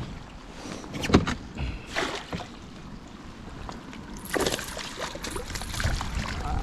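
Sounds of a hooked largemouth bass being played in beside a fishing kayak: a few sharp knocks about one and two seconds in, then splashing and water noise from about four seconds in as the fish is brought to the boat.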